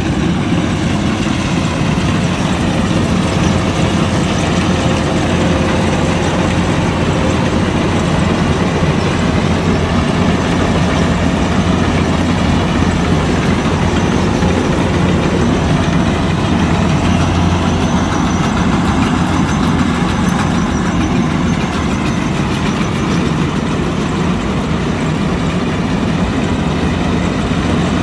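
Kubota DC-105X rice combine harvester running steadily as it cuts and threshes rice, its diesel engine and machinery giving a dense, even drone.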